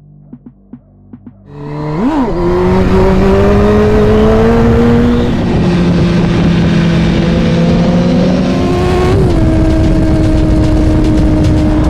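A sport motorcycle engine starts up loud about a second and a half in with a quick rev up and down. Its pitch then climbs steadily as it accelerates, drops suddenly twice on gear changes (around five and nine seconds in), and settles to a steady note.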